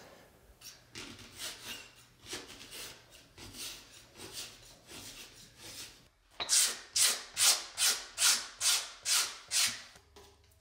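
Leather rubbed by hand with soft, irregular strokes, then a round knife skiving the edge of a saddle's ground-seat leather in about eight quick, even scraping strokes near the end.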